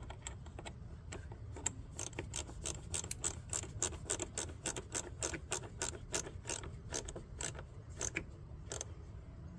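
Ratchet wrench clicking in quick, uneven strokes as a fastener is tightened down, starting about two seconds in.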